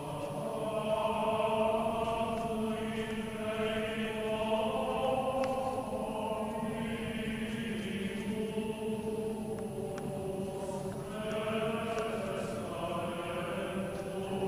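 Chant sung by several voices, holding long notes that move slowly from pitch to pitch and swell and fade in waves.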